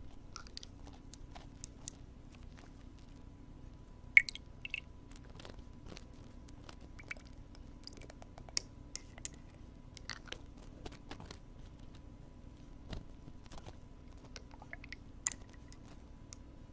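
Close-up ear-cleaning ASMR sounds on a binaural microphone: irregular crackly scratching and light clicks, with a sharper click about four seconds in and another near the end, over a faint steady hum.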